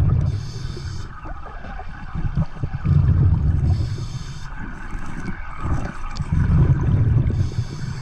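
Scuba diver breathing underwater through a regulator: three breaths, each a low rumble of exhaled bubbles followed by a short hiss as the regulator delivers air on the inhale, about every three and a half seconds.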